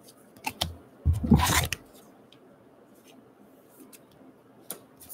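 Trading cards being handled: a couple of light clicks, then a thump with a brief rustle about a second in as the stack of cards is set down on the wooden tabletop, followed by a few faint taps.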